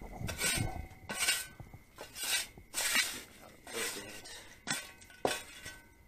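Short, irregular rustling and clattering noises about once a second, with light clinks, as hard objects are handled and knocked together.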